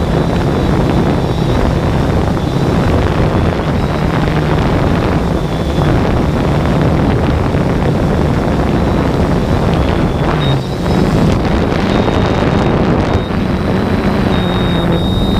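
Quadcopter drone's motors and propellers running in flight: a steady hum with a thin high whine, under heavy wind noise on the onboard microphone.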